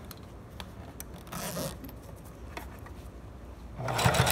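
Quiet handling at a sewing machine, light clicks and a short rustle of fabric and zipper tape, then the sewing machine starts stitching near the end with a fast, even run.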